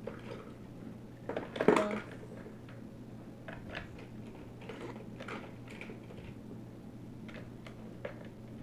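Die-cast metal toy cars clinking and clattering against each other as a hand rummages through a plastic bucket full of them, with a louder clatter about a second and a half in.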